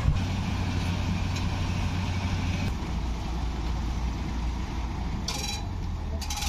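Heavy engine idling with a steady low hum that changes a little under three seconds in. Two short high squeaks come near the end.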